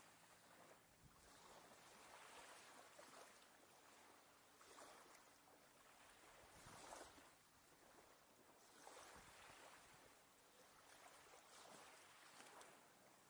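Small waves lapping at the water's edge: a faint hiss that swells and falls about every two seconds.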